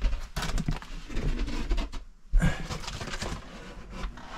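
A person's breathing: two long breaths, the second starting about two seconds in, with scattered scuffs and clicks and a low rumble of movement on the microphone.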